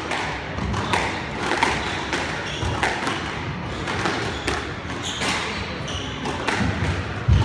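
Squash ball knocks and thuds ringing around a glass-backed squash court, one about every second, with the loudest, deepest thud near the end.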